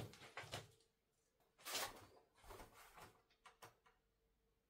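Mostly near silence, with a few soft shuffles and rustles and two light knocks as a person steps into place on a wooden shed floor.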